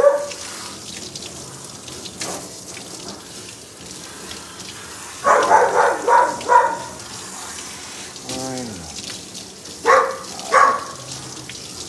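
Water spraying steadily from a handheld grooming sprayer onto a wet dog's coat in a stainless steel tub. Over it the dog lets out a few short whines about halfway through, one drawn-out falling whine, and two brief yelps near the end.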